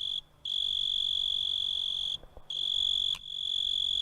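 Recorded cricket song: a clear, high, steady trill in long phrases of one to two seconds, broken by short pauses.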